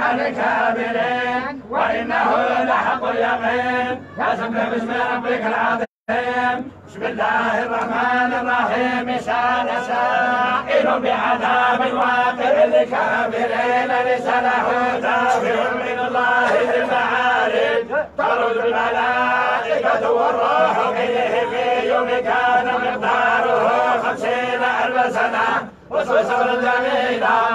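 A group of men reciting the Quran together in unison, chanting in long melodic phrases with short breaks between them.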